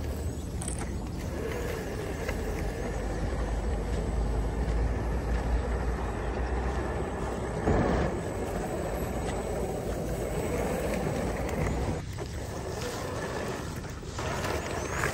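RC crawler's brushed 540-size 35-turn electric motor and gearbox whining steadily as the truck drives through grass and mud, with a brief louder knock about halfway through.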